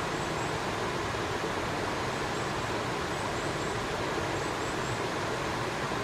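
Steady rush of flowing river water, with faint short high chirps in small groups of two or three.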